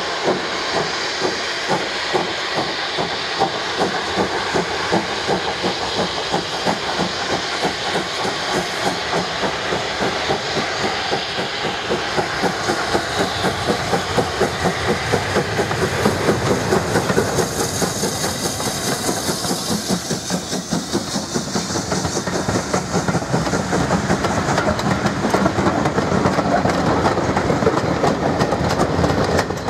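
Steam locomotive hauling a train of coaches, its exhaust beating in quick even succession over a steady hiss of steam, growing louder as it draws near and passes. Near the end the coaches roll by with wheel clatter on the rails.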